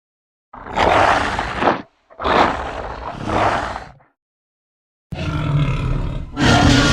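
Hog-monster roar sound effect: three loud, harsh roars separated by dead silence. The second swells twice, and the last, starting about five seconds in, carries a steadier low growling pitch.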